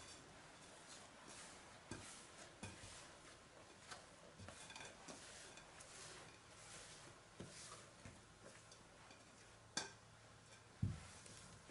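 Faint handling of a glass mixing bowl, with scattered soft knocks as risen yeast dough is tipped out of it onto a silicone baking mat. Near the end comes a sharper click, then a low thump.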